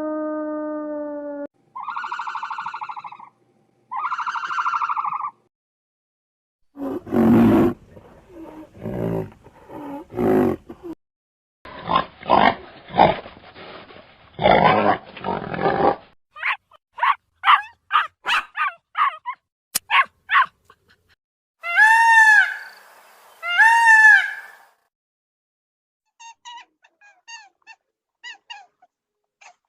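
A string of different animal calls cut one after another with short silences between. A falling howl stops about a second and a half in. Then come two short pitched calls, several harsh rough calls, a quick run of short clicks or squeaks, two arched rising-and-falling calls, and faint chirps near the end.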